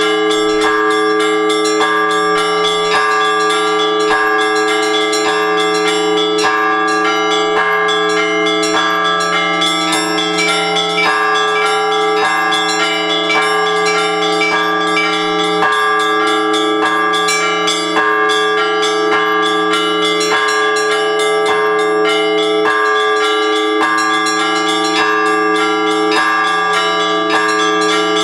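Orthodox church bells rung together in a peal: small high bells struck rapidly and continuously over deeper bells that keep ringing underneath with occasional heavier strokes.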